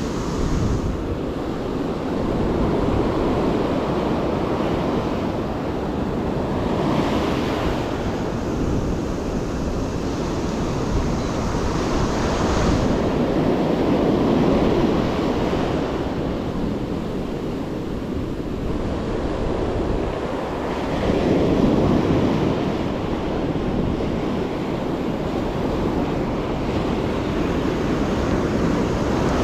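Ocean surf breaking and washing up a sandy beach, the roar of the water swelling and easing several times.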